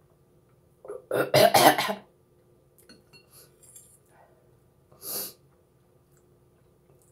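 A woman coughing several times in quick succession just after swallowing a spoonful of soup, followed about four seconds in by a single short breath.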